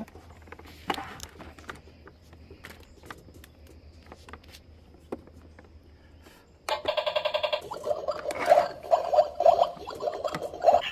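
Light clicks and taps of plastic toy-kitchen parts being handled and fitted. About seven seconds in, a louder buzzy electronic sound effect from a battery-powered toy starts suddenly and pulses rapidly, like a ringing tone.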